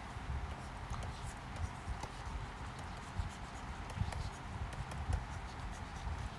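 Stylus tapping and scratching on a tablet screen while handwriting, heard as a string of faint, light clicks over a low background rumble.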